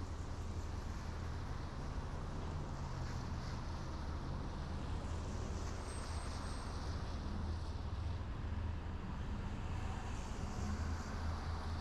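Car driving at steady speed: a low, even rumble of engine and road with tyre hiss over it.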